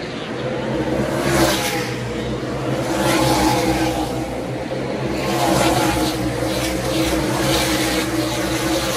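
NASCAR Cup Series stock cars' V8 engines running hard around a short oval, a dense drone that swells as cars pass, about a second and a half in, again around three seconds and just after five seconds.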